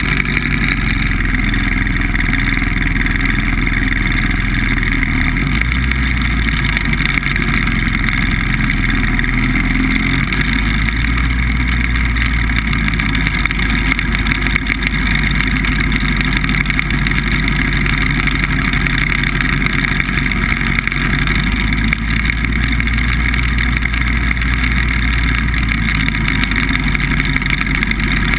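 BBV2+2 hovercraft's engine and thrust fan running steadily as the craft travels over the ice.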